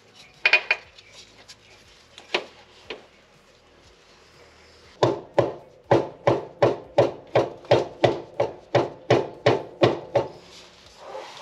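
Rubber mallet tapping a urethane rear differential bushing into its bore in a Nissan 350Z's rear subframe. A few scattered knocks come first, then from about five seconds in a steady run of about fifteen blows, roughly three a second.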